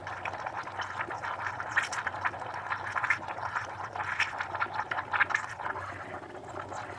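De'Longhi Stilosa steam wand frothing milk in a stainless steel pitcher: a steady hiss with irregular crackling and gurgling as steam and air are worked into the milk, over a low hum.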